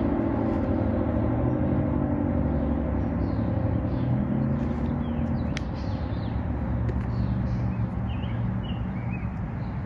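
ACA Allertor 125 outdoor warning siren winding down, its falling tone fading out over the first few seconds. After it comes a steady low outdoor rumble with birds chirping and a single sharp click about halfway.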